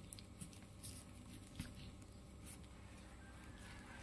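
Faint scattered rustles and light taps of a plastic-gloved hand handling red chillies on a wooden chopping board.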